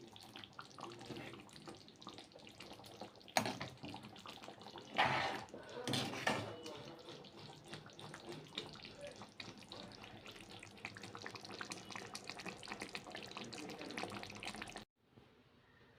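Chicken curry bubbling in the pan with an irregular crackle as it simmers. There are a few louder clatters about three, five and six seconds in, and the sound cuts off abruptly shortly before the end.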